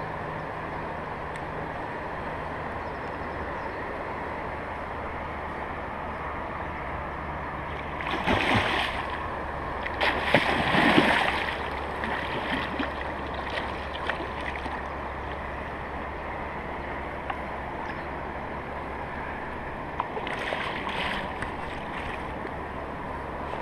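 Steady rushing of fast river water, with three short bouts of splashing: about eight seconds in, a louder one around ten to twelve seconds, and a lighter one near twenty seconds.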